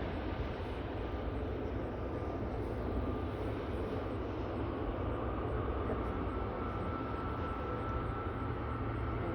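Aircraft engines running steadily at an airport: a continuous rumble and hiss, with a thin, steady high whine joining about halfway through.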